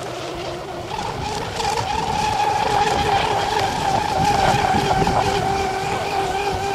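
A fast electric radio-controlled catamaran running flat out across the water, its motor and propeller giving a steady high whine over the hiss of spray. The whine jumps up about a second in and grows louder as the boat passes.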